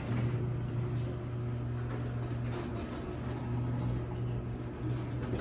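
Electric garage door opener motor running with a steady hum as it drives the door after a torsion spring replacement, the opener working again, cutting off near the end as the door completes its travel.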